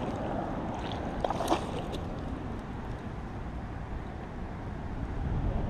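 Steady rush of flowing creek water, with a brief splashing sound about a second and a half in as a hooked fish is brought in.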